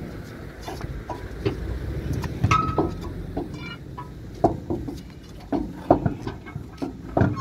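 Irregular metallic clinks and knocks from a long iron bar tapping and scraping against the road and a lorry wheel during a tyre change, some hits ringing briefly. A steady low rumble runs underneath.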